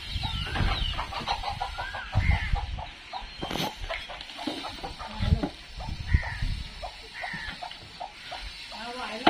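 Domestic chickens clucking repeatedly. Dull low thumps come in among the clucks, from stones being shifted, and there is one sharp knock about three and a half seconds in.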